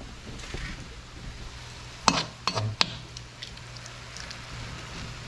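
Squid rings and pork sizzling in a wok, with a metal spatula scraping and knocking against the wok a few times about two seconds in.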